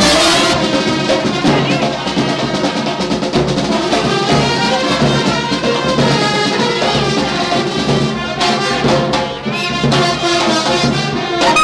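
Brass band music: trumpets and other brass playing a melody over a steady drum beat.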